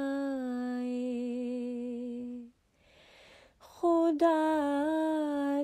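A single voice singing an Urdu song unaccompanied, holding a long steady note. After a short pause, a new line begins on a higher held note that steps down and is held again.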